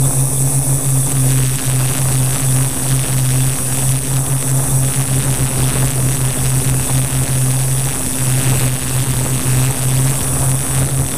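Multirotor drone's electric motors and 15x5.5 propellers humming steadily in flight, heard close up from a camera mounted on the craft, with a thin high whine over it and wind noise rushing across the microphone.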